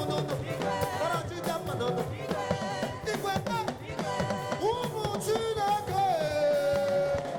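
Live African gospel praise music: a singer's voice over a band with a steady drum beat, ending on a long held note.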